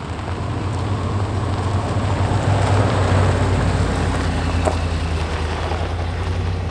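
Truck driving along: a steady low rumble of engine and road noise that builds over the first few seconds.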